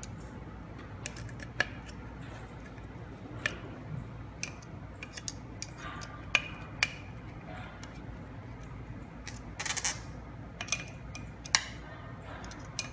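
A screwdriver turning the screws that hold the side cover onto an electric wheel hub motor: scattered sharp metal clicks and ticks, with a short cluster of them about ten seconds in.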